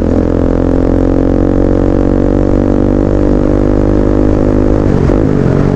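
Motorcycle engine running at steady revs, then the revs fall off about five seconds in.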